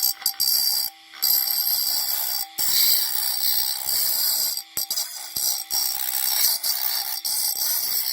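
Small 12-volt hobby lapidary machine running: a steady motor whine under a harsh, high-pitched rasp that cuts out briefly several times.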